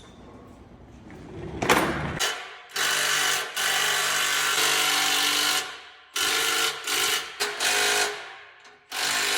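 A power tool run in a series of short bursts, roughly seven starts and stops of half a second to two seconds each. It is in use on the Mustang's exhaust during an X-pipe install.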